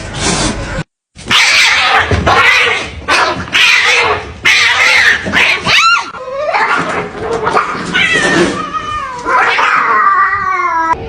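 Cats yowling and caterwauling loudly, with long wavering calls that slide up and down in pitch. The sound cuts out briefly about a second in.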